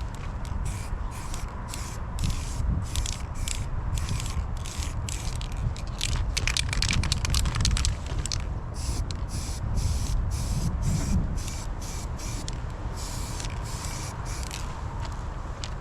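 Aerosol spray can hissing in many short bursts, about two to three a second, densest about halfway through, over a low rumble.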